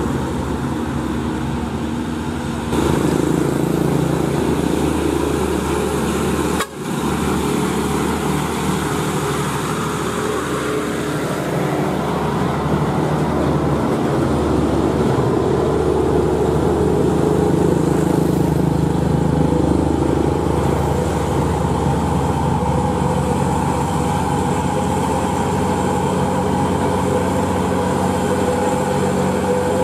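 Heavy loaded diesel trucks, Hino Ranger among them, pulling up a hill in low gear as they pass, with motorcycles going by. The sound cuts abruptly about three and seven seconds in.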